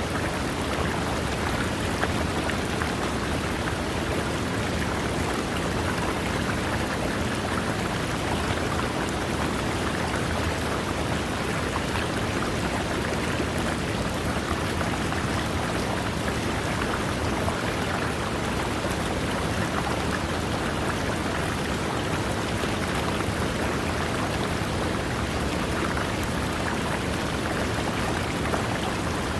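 A river running over rocks: a steady, even rush of water.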